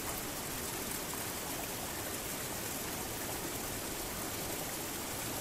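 Steady rush of a stream pouring down in a curtain of water, an even sound that does not change.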